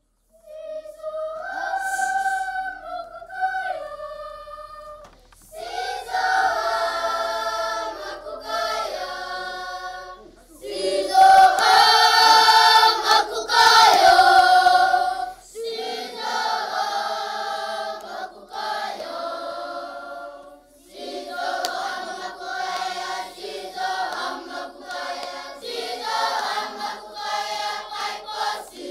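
A choir singing. A single voice leads for the first few seconds, then the full group comes in, singing in phrases with brief breaks between them.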